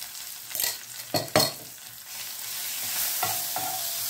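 Wooden spatula stirring and scraping green chilli-ginger paste, curry leaves and cumin in hot oil in a frying pan. There are a few sharp scrapes about a second in, then the sizzle of the frying paste grows louder.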